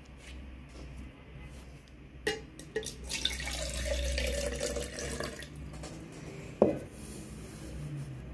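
Water poured from a glass into an empty plastic jar, a splashing stream lasting about two seconds. A couple of light knocks come just before it and one sharper knock a second or so after it stops.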